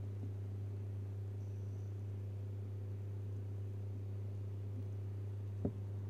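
A steady low hum, with one sharp click a little before the end as small parts of the print head are handled.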